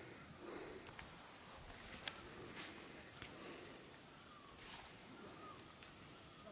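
A steady, high-pitched insect chorus, likely crickets or cicadas, droning without a break. Several faint sharp clicks and rustles are scattered through it.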